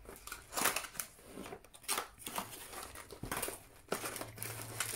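A cardboard box being opened by hand and its packaging reached into: irregular rustling and crinkling with a few sharper crackles.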